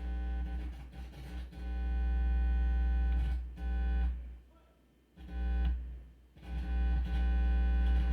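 Loud mains hum from a stereo's auxiliary input, fed by an RCA-to-P2 male cable, cutting out and coming back several times with crackles as the plug is moved, dropping almost away for about a second around four seconds in. The hum comes from a bad connection or poorly grounded cable.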